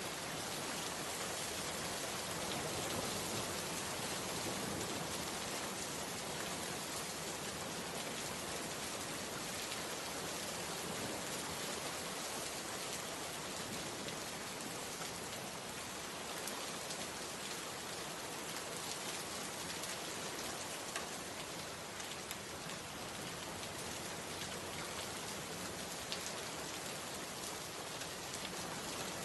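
Steady rain-like hiss: an even, unbroken noise with a few faint scattered ticks, like rain falling on a surface.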